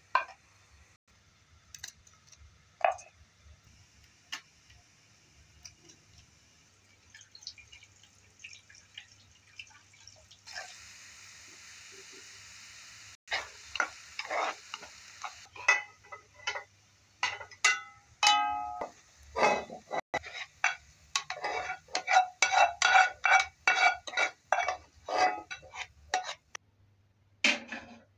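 Chopped onions frying in a granite-coated pot while a spatula stirs them: a dense run of quick scraping strokes against the pot, some with a ringing note, after a short steady sizzle. Before that there are only a few light clicks.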